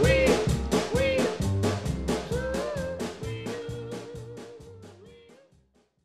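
Upbeat background music with a quick steady beat and a melody over it, fading out to silence about five and a half seconds in.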